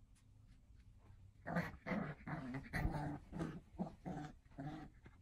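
Cocker spaniel growling: a string of about eight short growls, starting about a second and a half in.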